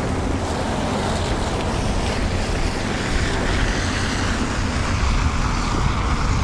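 Steady rush of wind over a moving bicycle's camera microphone, mixed with passing road traffic, with a heavy low rumble and no separate events.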